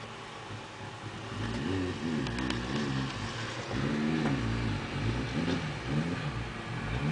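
1984 Yamaha FJ1100's air-cooled inline-four engine running as the motorcycle is ridden at low speed, the revs rising and falling several times as the throttle is opened and closed.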